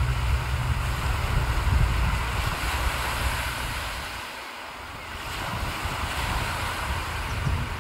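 Wind buffeting the microphone in gusts, easing off briefly about four to five seconds in, over a steady hiss of surf breaking on the beach below.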